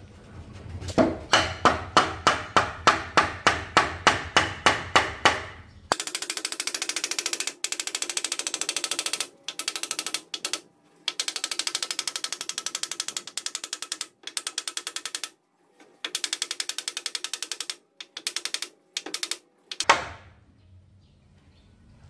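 A hand tool worked in steady strokes about three times a second for about five seconds, then a ratcheting mechanism clicking rapidly in bursts of one to two seconds with short pauses between. A single sharp knock comes near the end.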